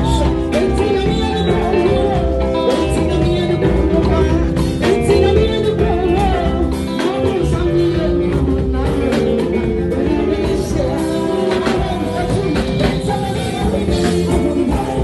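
Live band playing, with drum kit, guitars and keyboard, while a woman sings into a microphone over it.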